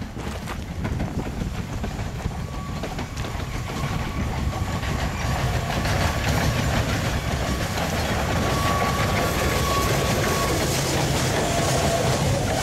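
Steam locomotive hauling a long coal train, growing louder as it approaches over the first few seconds, then its open coal wagons rolling past with a steady clickety-clack of wheels over the rail joints.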